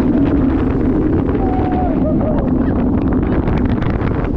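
Wind rushing over the microphone with the rumble and clatter of a Bolliger & Mabillard dive coaster train running along its track at speed, and a brief faint rider's cry in the middle.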